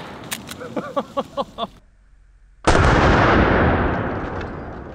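Henry lever-action .45-70 rifle firing heavy 460-grain hard-cast loads. The echo of one shot fades while the lever is worked with a quick run of metallic clicks. About two and a half seconds in, a second loud shot goes off, its report dying away over a couple of seconds.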